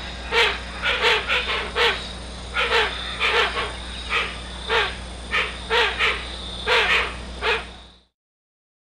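Hoatzin giving a series of about seventeen short, harsh, hissing calls, some in quick pairs, over a steady low hum; the calling stops about eight seconds in.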